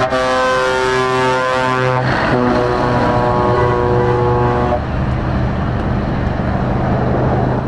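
Scania R500 V8 truck's multi-note air horns sounding a chord: one blast, a brief break about two seconds in, then a second blast that stops about five seconds in. The truck's V8 engine runs steadily underneath and continues after the horns stop.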